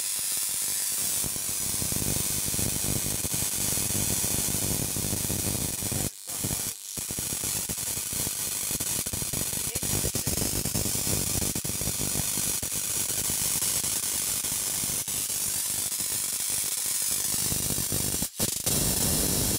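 High-voltage arcs from a neon sign transformer crackling and snapping continuously across homemade saltwater bottle capacitors wired in parallel. The sound is loud and breaks off briefly about six seconds in and again near the end.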